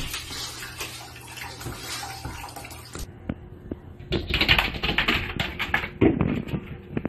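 A cat splashing water with its paw in a stainless steel bowl; about three seconds in, this gives way to a rapid, uneven run of taps and scratches as a cat paws at a glass door.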